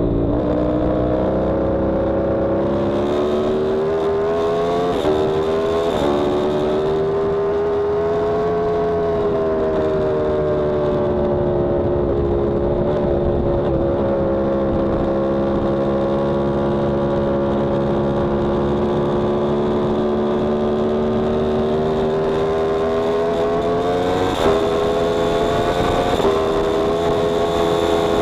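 Yamaha R1M's crossplane inline-four engine heard onboard at speed, holding a fairly steady pitch through long stretches. It jumps abruptly in pitch a few times, about five seconds in and again near the end, as gears are changed.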